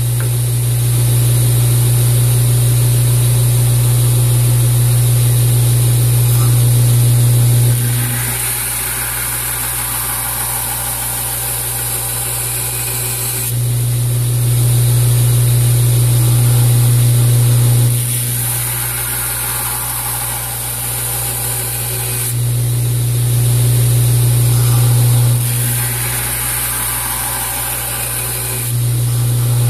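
Wilmont LB1000 2x72 belt grinder running with a steady motor hum while a steel knife blade is ground against the abrasive belt, throwing sparks. The sound swells and eases every few seconds as the blade is worked in repeated passes.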